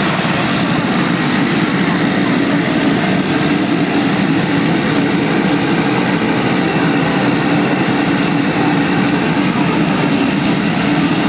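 Pilatus PC-12 single-engine turboprop running on the ground with its propeller turning slowly: a steady drone with a humming tone that comes through a little stronger near the end.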